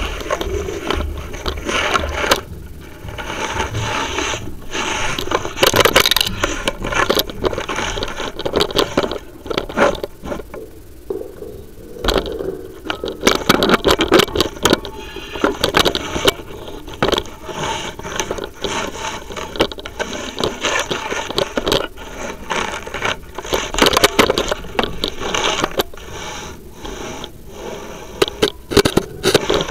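Chimney inspection camera scraping and rattling against the inside walls of a flue as it is worked along it: a dense, uneven run of scrapes and clicks that eases off for a few seconds around the middle.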